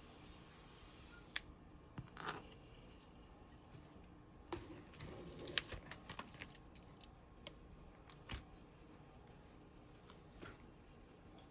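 Metal spoon clinking and scraping against containers while condensed milk is added by the spoonful: a scatter of sharp clinks, with a busy run of them in the middle.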